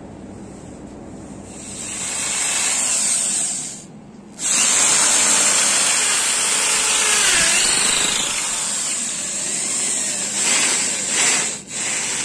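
Hand-held electric drill with a long bit boring down into the neck of a wooden vase, a loud rasping whine of the bit cutting wood. It starts about a second and a half in, stops briefly around four seconds, then runs on with a short break near the end.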